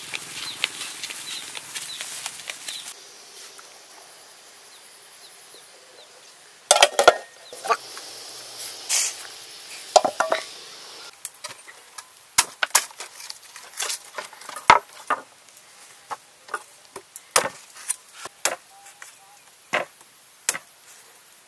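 Machete blade striking a green coconut: a run of sharp, separate chops, about one every half second to a second, through the second half. Before that, rustling, then a few louder knocks and a brief hiss.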